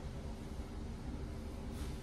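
Steady low room hum, with a soft rustle near the end as fingers are drawn through a straight human-hair wig.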